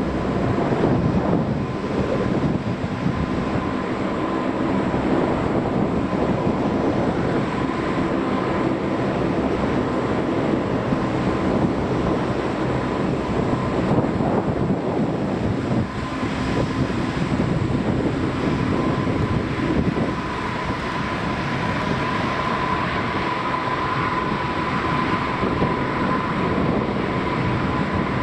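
Four-engine turboprop of the Lockheed P-3 family (P-3C Orion or CP-140 Aurora), its Allison T56 engines running steadily with a deep drone and a high, steady turbine whine.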